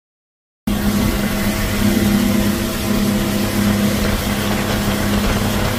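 Silence, then about two-thirds of a second in, a 250-horsepower outboard motor cuts in, running steadily at speed, with rushing wind and spray from the boat's wake.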